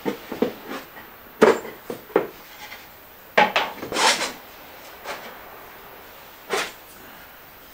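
Wooden box and trays being handled on a workbench: irregular knocks, clatters and rubs of wood on wood as pieces are picked up, slid and set down, the loudest clatter around the middle.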